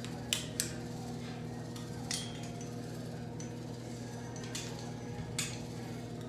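A few sharp, light clicks of hard tools being handled: the flat iron and rattail comb clicking as sections of wig hair are parted and pressed. Two come close together near the start, one about two seconds in and one near the end, over a steady low electrical hum.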